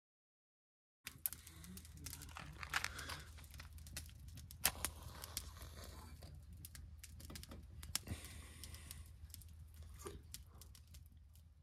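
Hands handling a metal hurricane oil lantern, with faint clicks and small metal rattles over a low steady background, starting after about a second of silence.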